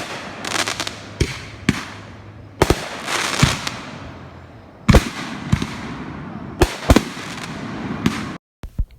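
Fireworks going off: a quick series of about ten sharp bangs, each trailing off into crackle and hiss. The sound cuts off abruptly near the end.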